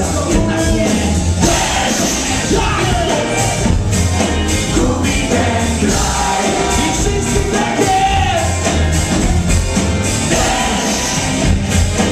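Live rock band playing with a lead vocal over drums, bass guitar and keyboards, heard from among the audience in a hall.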